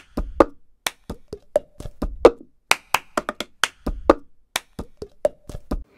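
Percussive intro music: a quick rhythm of sharp, knocking clicks with a deep drum hit about every two seconds, stopping abruptly at the end.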